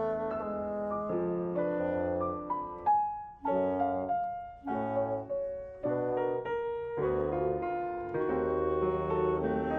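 Chamber trio of grand piano, clarinet and bassoon playing a classical concert piece: sustained wind notes over piano chords, broken by short gaps about a third of the way in before the ensemble plays on.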